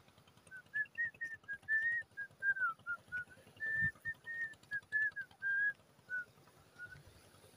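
Whistling: about two dozen short, clear notes in quick succession, stepping up and down within a narrow pitch range for roughly six seconds. A low thump comes near the middle.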